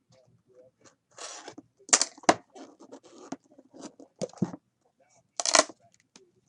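A trading card box and its packaging being opened and handled: a short rustle about a second in, and sharp clicks and taps of cardboard and cards.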